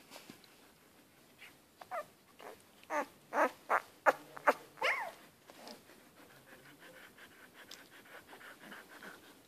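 One-week-old Siberian Husky puppy whimpering and squeaking in its sleep: a run of short, high-pitched squeaks, each falling in pitch, between about two and five seconds in, then quieter.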